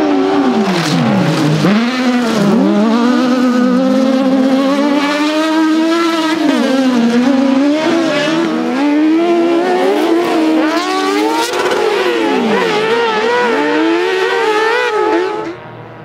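Autocross buggy engine revving hard on a dirt track. Its pitch repeatedly drops as the driver lifts off, then climbs again under acceleration. Near the end the sound falls suddenly to a much quieter level.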